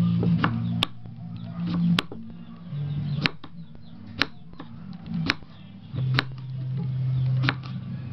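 Kitchen knife slicing through a wild bitter gourd and knocking on a wooden chopping board, sharp knocks about once a second. A loud, steady low hum runs underneath, stepping up and down in pitch now and then.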